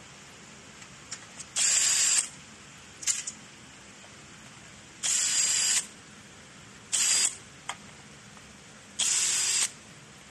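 Cordless drill-driver whirring in about five short bursts on screws in a metal motor bracket plate, each burst well under a second, one only a blip.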